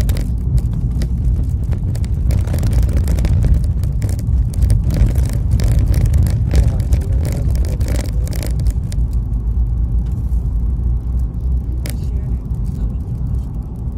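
Steady low rumble of a moving vehicle's engine and tyres, heard from inside the cabin while driving, with a few faint rattles and knocks in the first half.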